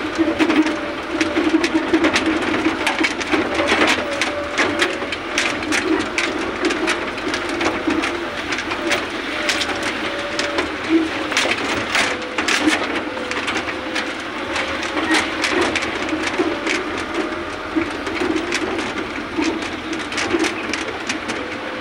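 A vehicle engine drones steadily while the vehicle jolts along a rough, muddy dirt road. Frequent short rattles and knocks run through it.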